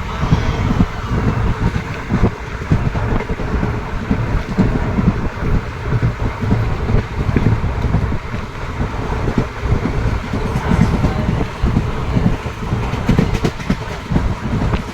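Train rolling along the track: a steady low rumble with frequent irregular knocks and thumps from the wheels and carriage.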